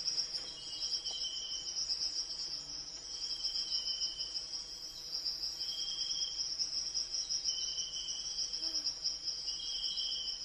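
Forest insects trilling: a continuous, rapidly pulsing high-pitched trill, with a second, lower chirp repeating about every two seconds.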